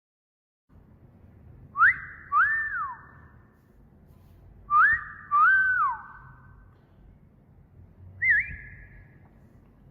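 Wolf whistle, given twice: each is a quick rising note followed by a longer rising-then-falling note. A shorter, wavering single whistle comes near the end.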